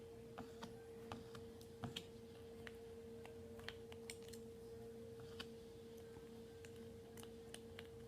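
Quiet room with faint, irregular light clicks and taps, a few every second, over a steady electrical hum.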